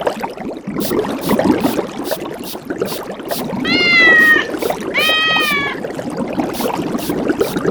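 Two short pitched animal calls, each under a second and about a second apart, over a steady crackling, bubbling noise with scattered clicks.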